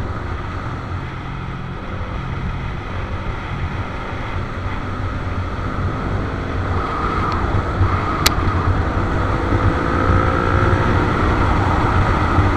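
Motorcycle engine running at speed on the road, with wind noise on the camera microphone, growing gradually louder. A single sharp click about eight seconds in.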